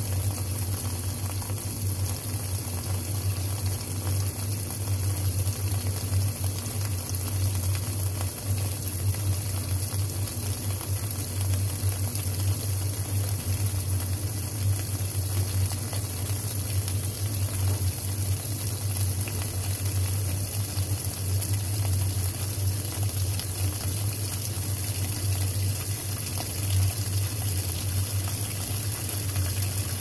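Kenmore 80 Series direct-drive top-loading washing machine in its wash fill: water running steadily into the tub over a load of towels, with a steady low hum beneath.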